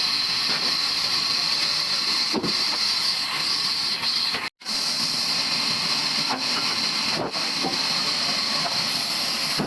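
Sawmill machinery running with a steady hiss, cut by a brief total dropout about four and a half seconds in.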